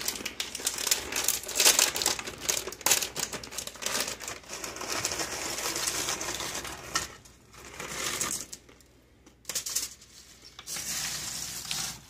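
Dry snack mix of crackers, pretzels and chips being stirred with a wooden spoon and turned by hand in a baking dish: a dense clatter of crisp pieces rattling and rustling against each other. It dies down about two-thirds of the way through and starts again near the end.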